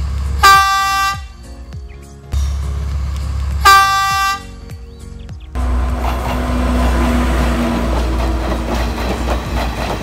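Horn of a Sri Lanka Railways Class S12 diesel multiple unit giving two short blasts about three seconds apart. From about five and a half seconds in, the train runs past close by with a steady rumble.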